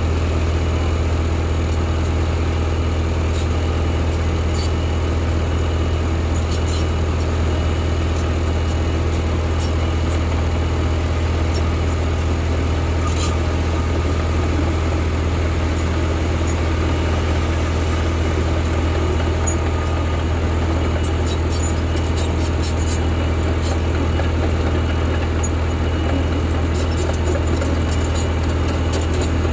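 Heavy diesel engine of construction machinery running steadily at constant speed, a strong low hum that does not change, with a few faint clicks over it.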